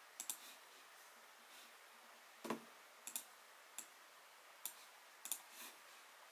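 Faint, irregular clicking of a computer mouse and keys during video editing: short clicks one or two at a time, with a heavier, lower knock about two and a half seconds in.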